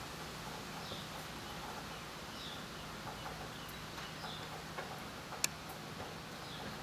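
Faint short bird chirps repeating about every second and a half over a steady low hum, with a few sharp clicks, one louder about five seconds in.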